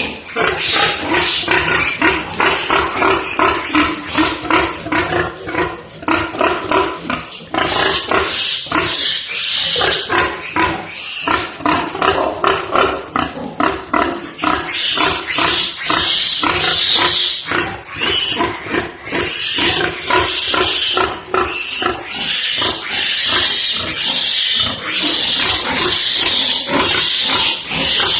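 Many pigs grunting and squealing without a break, with the high squeals loudest and most frequent from about eight seconds in.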